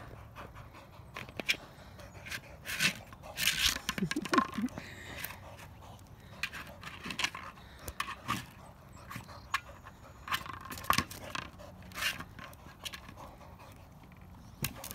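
Boxer dog panting while pushing a rubber ball around on asphalt, with scattered short knocks and scrapes.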